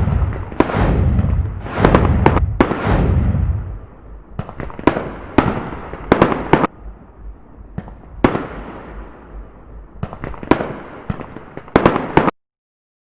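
Fireworks going off: a quick run of loud bangs with a deep rumble for the first few seconds, then scattered sharper bangs and crackles, cutting off suddenly near the end.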